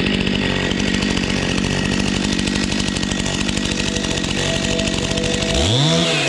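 Two-stroke chainsaw engine running steadily. From about five and a half seconds in, it revs up and down repeatedly.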